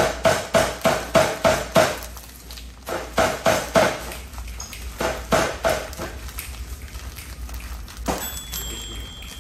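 Bursts of quick, sharp knocks, about three a second, each with a short ring, as Oreos are pounded to crush them; the knocking dies away after about six seconds.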